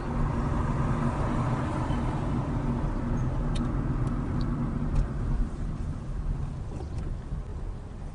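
Car engine and road noise heard from inside a moving car: a steady low hum that eases off after about five seconds as the car slows to turn.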